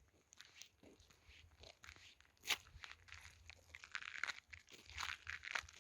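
Faint, irregular crunching of snow and ice, with one louder crunch about two and a half seconds in and a quicker run of crunches near the end.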